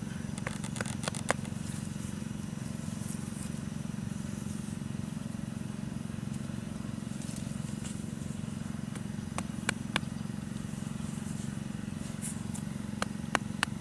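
A steady low hum, with a few sharp clicks and light scrapes of hands pressing dirt and sticks around a ground net bird trap: a cluster about half a second in, two around ten seconds in, and several near the end.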